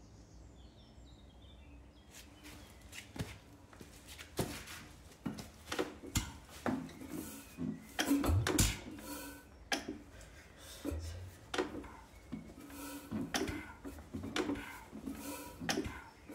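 Air-cooled 1930s Bamford hit-and-miss stationary engine being turned over by hand at its flywheels without firing. From about two seconds in there is an irregular run of metallic clicks and clunks from the engine's moving parts, with a few heavier knocks near the middle.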